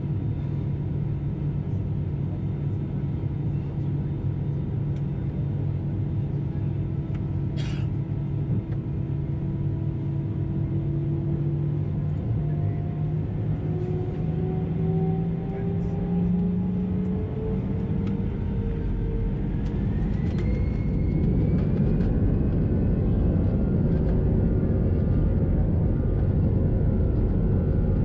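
Airbus A320-214's CFM56 turbofan engines heard from inside the cabin. Their steady hum and whine rise in pitch over several seconds as thrust comes up for take-off, and from about twenty seconds in a louder, rougher rumble builds as the aircraft accelerates.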